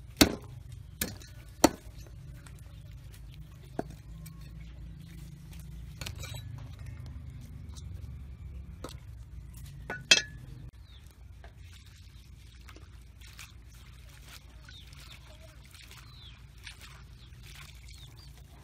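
Several sharp knocks and clinks of a knife on a wooden chopping board as a fish is cut into pieces, strongest in the first couple of seconds and once more about ten seconds in. Near the end, faint splashing of water as vegetable stems are washed in a metal bowl.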